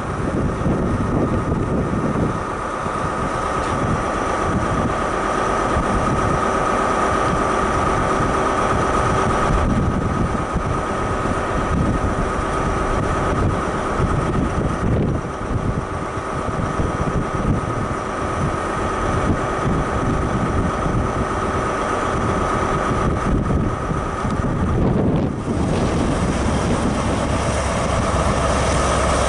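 Class 43 HST diesel power cars running as an InterCity 125 moves slowly over the station pointwork, with a steady high whine throughout and wind buffeting the microphone. Near the end, a Class 43 power car idles at the platform with a steady low hum.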